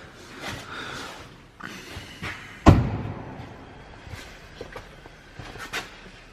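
A single loud slam about two and a half seconds in, with a short ringing tail, among quieter knocks and rustling handling noises.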